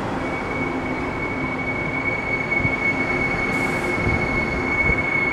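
Taiwan Railways Tze-Chiang express passenger train rolling along the platform, with a steady rumble and a faint low hum. A steady high-pitched squeal sets in just after the start and holds.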